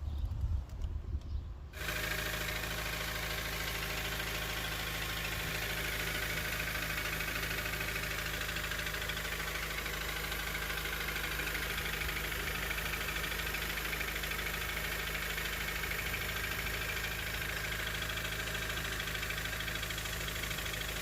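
Honda K20A4 2.0-litre four-cylinder engine idling steadily with a knocking noise, which the owner suspects comes from a wobbling harmonic balancer on the crankshaft pulley. A brief irregular low rumble comes before the engine sound begins, about two seconds in.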